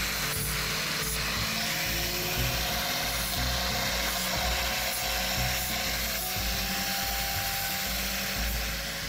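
Angle grinder with a sanding disc running steadily as it sands the carved surface of a wooden bear sculpture: the final finishing stage of a chainsaw carving. Background music plays underneath.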